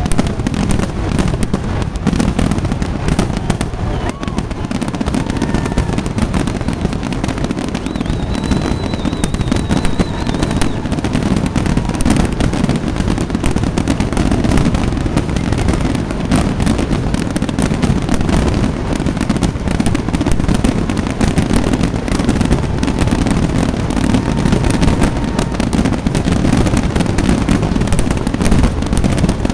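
Fireworks display: a dense, unbroken run of bangs and crackling from aerial shells bursting in quick succession, loud throughout.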